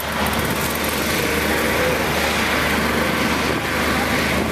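Heavy diesel engines of a truck-mounted concrete pump and a concrete mixer truck running steadily during a concrete pour: a constant low engine hum under a loud, even mechanical noise.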